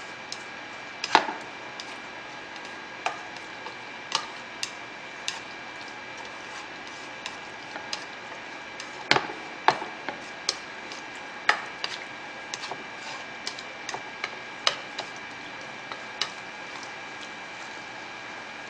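Wooden chopsticks clacking and scraping against a frying pan while stir-frying spicy pork and carrots. Irregular taps, the loudest about a second in and a cluster around the middle, over a steady faint hiss.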